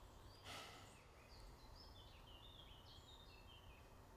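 Faint woodland ambience: small birds chirping in short, high phrases over a low steady rumble, with a brief soft hiss about half a second in.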